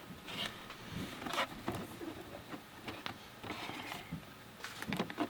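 Faint rustling and light scraping of a cardboard camera box being handled and opened.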